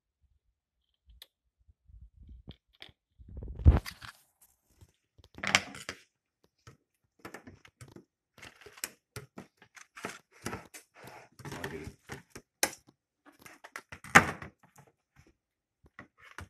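Irregular clatter and rustling of kitchen items being handled on a countertop: packaging and plastic tubs moved and set down. There are several sharper knocks, the loudest about four seconds in and again near the end.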